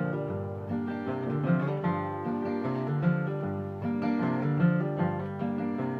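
Acoustic guitar playing an instrumental passage of a country-folk song, strummed and picked in a steady rhythm, with no singing.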